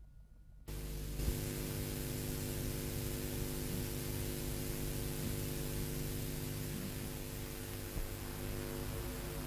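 Steady static hiss with a low mains hum underneath, switching on abruptly a moment in, with a small pop soon after and another near the end: the noise floor of a blank lead-in on an old video transfer.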